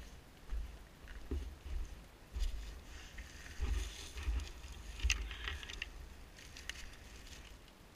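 Footsteps on frosty ground and dry leaf litter, with twigs and branches crackling and brushing past, loudest a few seconds in as the walker pushes into the brush. Dull low thumps from the steps and wind jolt a body-worn camera's microphone throughout.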